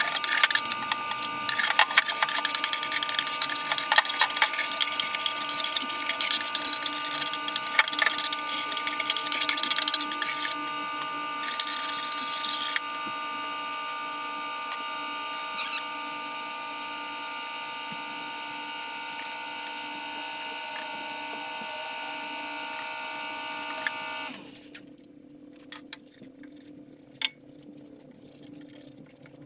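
A small electric power tool works on an aluminum door skin, with a gritty abrasive rasp for about 13 s. It then runs on steadily with a constant hum. The motor cuts off about 24 s in, leaving a few faint ticks.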